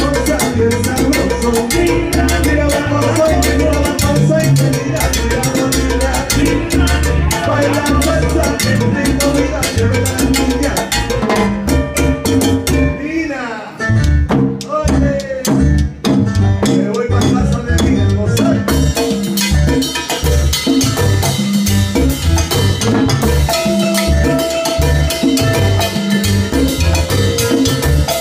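A live salsa band playing, with congas and timbales over a repeating bass line. About halfway through, the band drops briefly to a sparser break before the full groove comes back in.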